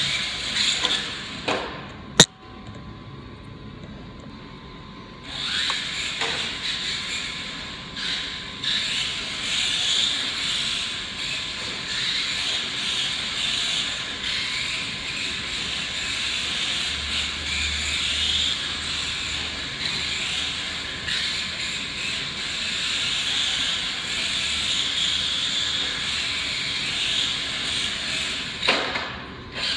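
Dromida 1/18 electric RC rally car driving on a concrete floor: a high motor and gear whine rising and falling with the throttle, with tyre scrub. There is a sharp click about two seconds in, and the car runs steadily from about five seconds in.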